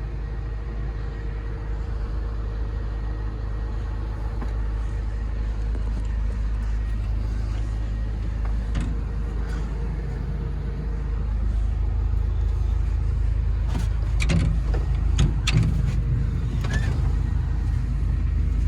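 Komatsu PC200LC-8 excavator's six-cylinder turbo diesel running at a steady idle, heard from inside the cab as a low rumble. A few sharp clicks come in the last few seconds.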